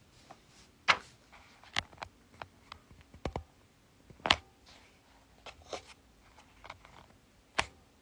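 Handling noise: a string of irregular clicks and knocks from something being moved close to the microphone. The loudest knocks come about a second in, just past four seconds and near the end, with smaller taps between them.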